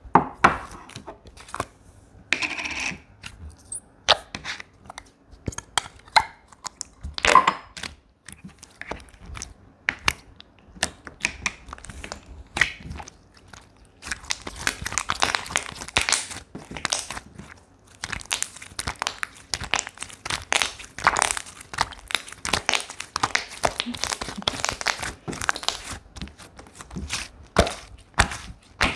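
Slime being kneaded and pressed by hand, giving a run of small wet clicks, pops and crackles. They come in scattered bursts at first and turn almost continuous about halfway through.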